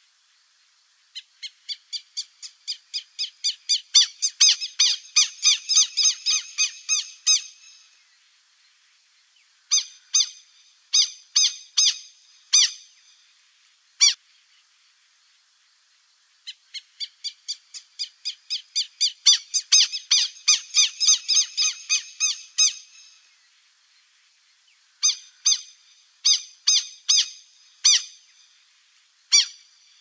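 Buff-necked ibises calling: a rapid run of repeated ringing notes, about four a second, that swells into a loud chorus for several seconds and then breaks into a few separate calls. The whole sequence comes twice.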